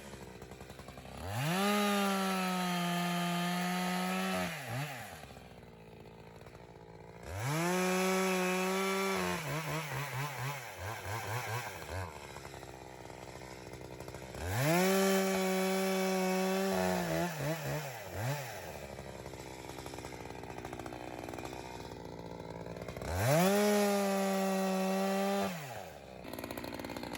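Echo CS-620 two-stroke chainsaw with a 24-inch bar, cutting ash firewood. It is throttled up to full revs four times, each burst rising quickly and holding steady for two to four seconds, then dropping back to idle.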